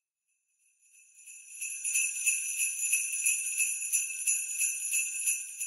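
Jingle bells shaken in a steady rhythm of about five shakes a second, fading in about a second in and growing louder.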